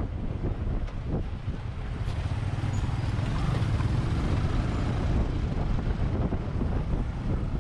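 Sport motorcycle's engine running as it rolls slowly through traffic, a steady low rumble, with wind noise on the camera's microphone.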